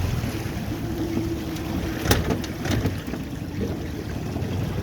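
Boat motor running steadily at trolling speed, a low even drone, with a few sharp clicks or knocks about two seconds in.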